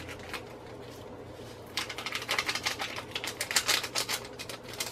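Rapid dry crackling and clicking, starting about two seconds in and stopping near the end, as a small sachet of shrimp seasoning is handled and emptied over a pot.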